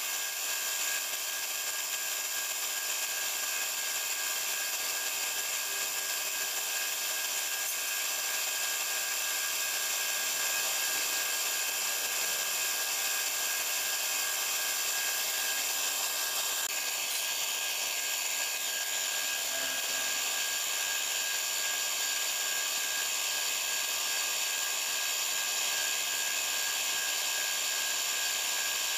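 Compressed-air paint spray gun hissing steadily as paint is sprayed, with a steady machine whine underneath.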